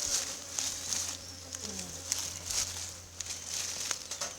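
A beehive frame being bumped repeatedly, giving a series of short, irregular knocks: the bumping method of shaking varroa mites off the frame into a pan to check the hive for mites.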